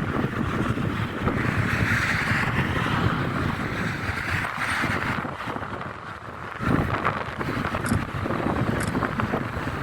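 Train passing by, with wind buffeting the microphone.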